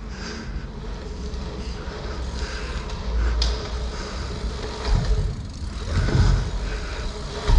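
Dirt jump bike rolling: a low rumble from the tyres that swells several times, about 3, 5 and 6 seconds in and again near the end. There is one sharp click a little after 3 seconds in.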